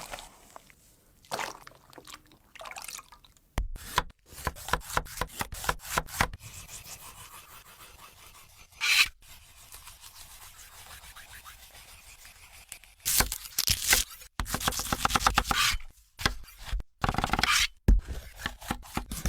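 Close-miked food-preparation sounds: runs of quick taps and clicks with scraping and rubbing, and a brief hiss about nine seconds in.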